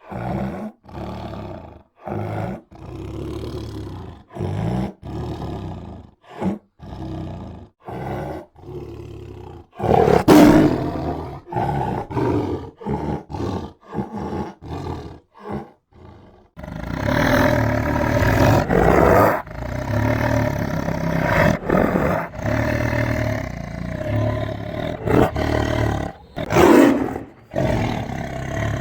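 Tiger roaring: a string of short roars broken by brief silent gaps, then, a little past halfway, a denser and louder run of roars with several big peaks.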